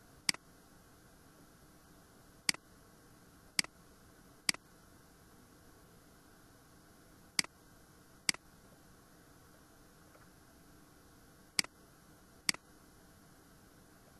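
Computer mouse button clicking: eight single sharp clicks at uneven intervals, some in pairs about a second apart, over a faint steady hiss.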